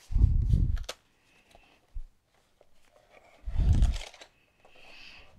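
Handling noise of a soft carrying case: two dull thumps with rustling, one at the start and one a little past halfway, a sharp click about a second in, and a faint sliding rustle near the end as a Convergent Workslate portable computer is drawn out of the case.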